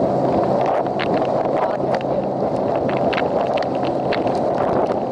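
Outboard-powered boat running at speed: a steady engine hum under heavy wind buffeting the microphone, with frequent short, sharp knocks and splashes from the hull crossing chop.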